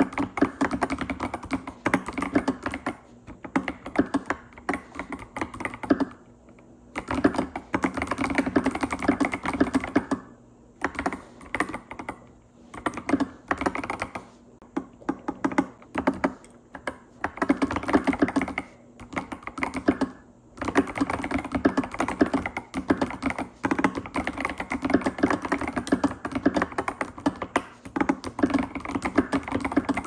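Fast typing on a CoolKiller CK98 mechanical keyboard with clear keycaps: a dense stream of keystroke clacks, broken by several brief pauses.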